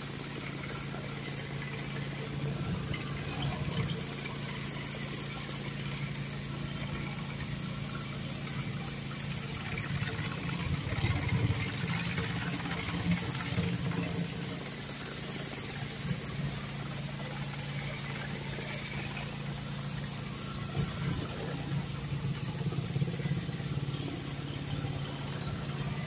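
Pressure washer running with a steady hum, while a rotary surface cleaner sprays water onto a concrete sidewalk with a continuous hiss. The hiss swells now and then as the cleaner is pushed along.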